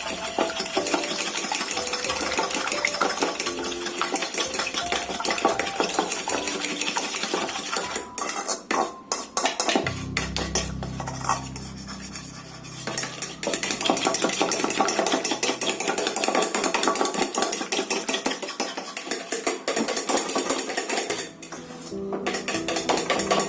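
A utensil rapidly beating eggs in a bowl, a fast run of clicks against the bowl's side, pausing briefly twice.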